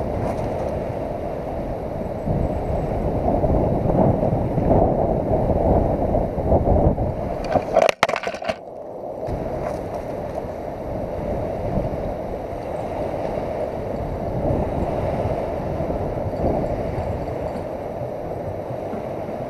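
Steady rushing noise of wind buffeting the microphone, with river water lapping at the rocky shore. There is a sharp click and a brief drop about eight seconds in.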